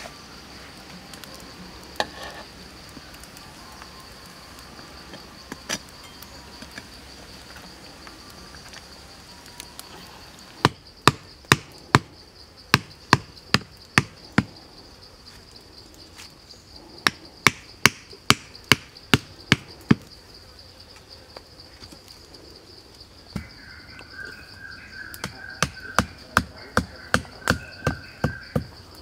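A hammer drives wooden stakes into the ground in three runs of sharp knocks, about two or three a second. Under it is a steady high insect drone.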